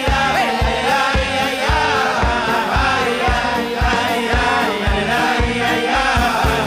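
Live Hasidic music: several men singing together into microphones over a band, with a steady, fast drum beat.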